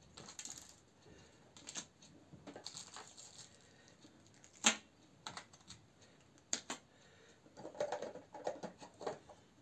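Hands rummaging through small fishing tackle in a plastic tackle box: scattered light clicks and rattles of small packets and parts being picked up and set down on a table, with one sharper click about halfway through.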